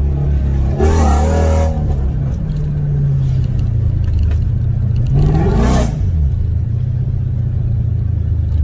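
2013 Dodge Durango R/T's 5.7 L Hemi V8 exhaust, through long-tube headers, Borla Pro XS mufflers and an X-pipe with the mid muffler deleted, running under way in first gear and heard inside the cabin through the open rear hatch. A deep, steady exhaust drone swells in two short surges of revs, about a second in and again around five seconds in.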